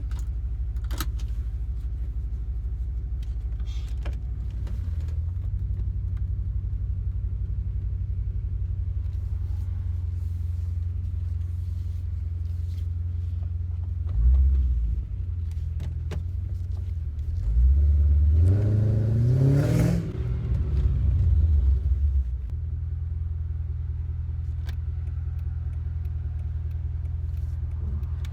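Mercedes-Benz CLK engine running with a steady low rumble, with a few light clicks near the start. About two-thirds of the way in it revs up, rising in pitch for a few seconds as the car accelerates, then settles back to its steady running.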